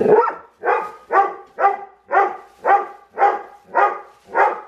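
A dog barking excitedly in a steady run of short, loud barks, about two a second.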